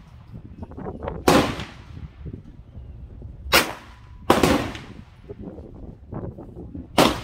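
Ruger Mark IV Tactical .22 LR pistol with a muzzle brake firing four single shots at uneven intervals, each a sharp crack with a short echoing tail.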